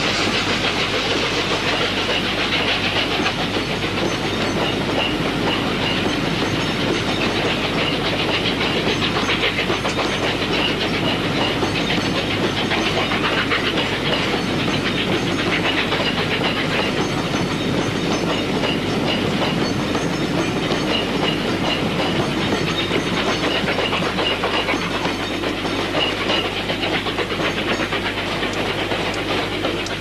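Steam-hauled passenger train passing close below and running away down the line. The coaches' wheels click over the rail joints in repeated groups over a steady rumble, with a hiss of steam.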